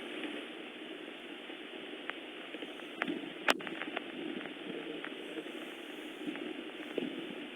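Steady hiss of rain falling, with scattered sharp ticks, one louder tick about three and a half seconds in.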